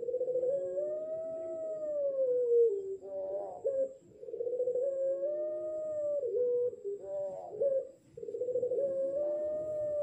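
Young puter pelung ring-necked dove, about six months old and still learning its song, giving long drawn-out howl-like coos. There are three long coos, each about three seconds and rising then falling in pitch, with short broken notes between them.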